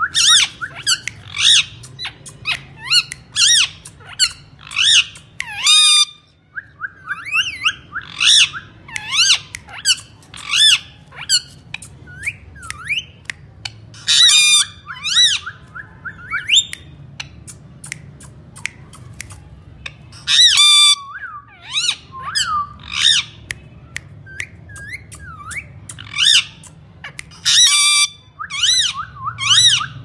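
Indian ringneck parakeet calling over and over: short, shrill, high-pitched squawks in quick runs, with a few brief pauses.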